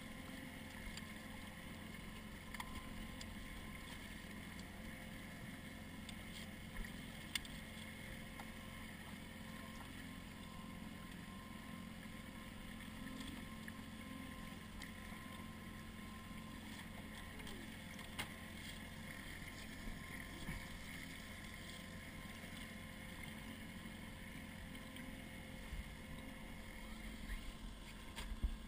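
Boat's outboard motor running steadily at trolling speed, an even drone with a constant pitch, over a low rush of water and wind. A few faint clicks are heard.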